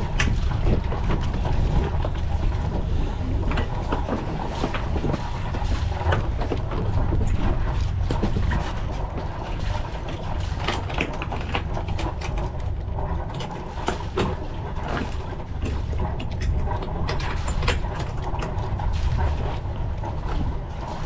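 Knocks, clicks and clatter of deck work as a sailing yacht's mooring lines are cast off, over a steady low rumble.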